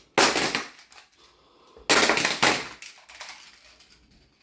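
Plastic magnet tiles crashing and clattering as a tile building is struck and collapses, twice: once just after the start and again about two seconds in, the second crash with a follow-up clatter half a second later.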